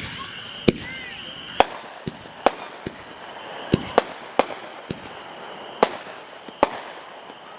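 Biggs Chameleon reloadable ball shells being fired: a string of about a dozen sharp, irregularly spaced bangs as the shells launch and burst.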